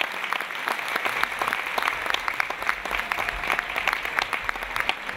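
Live audience applauding, a dense steady patter of many hands clapping.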